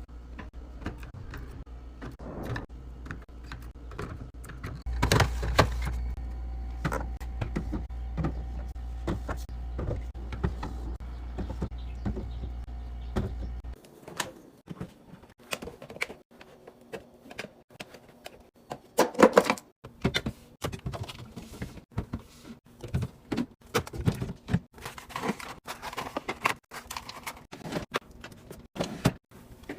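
Fridge restocking: many light clicks, knocks and taps of containers, bottles and lids being set on shelves and snapped shut, with a low hum under the first half that stops abruptly about halfway through.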